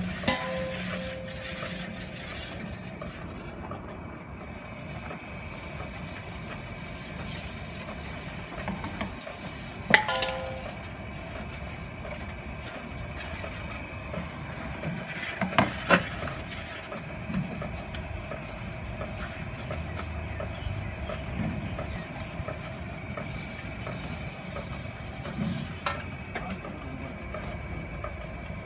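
Cow dung log-making machine running, its screw extruder driven by a belt pulley: a steady mechanical hum with a few fixed tones, broken by sharp knocks about ten seconds in and again a few seconds later.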